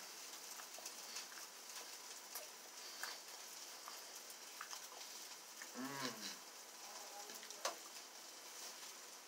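A faint steady hiss, with one short, low, hummed voice-like sound about six seconds in, dipping then rising in pitch, and a few faint clicks.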